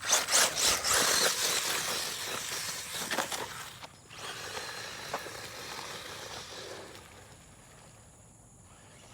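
Traxxas 1/16 Slash RC truck driving over gravel and dirt, its tyres crunching with a few sharp knocks at the start, then fading as it moves away.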